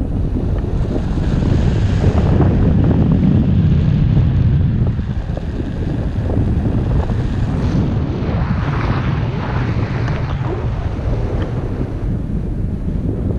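Airflow of a paraglider in flight buffeting the camera's microphone: a steady, loud low rumble of wind noise.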